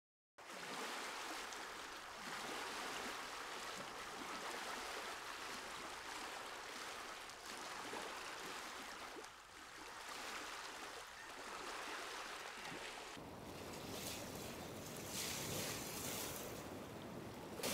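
Small waves on a lake washing steadily. About two-thirds of the way in, the sound changes to waves breaking on a pebble shore, with a low rumble of wind.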